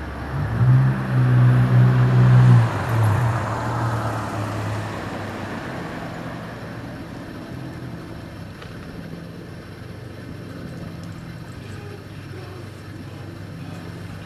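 A low, steady engine drone, loudest for about two seconds near the start, followed by a broad rushing swell that fades back to a fainter hum.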